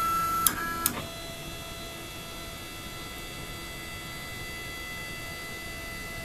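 CNC mini mill's stepper motors whining steadily as the axes drive to their homing limit switches. Two sharp clicks come about half a second and a second in, after which the whine settles into a different steady pitch as the next axis travels.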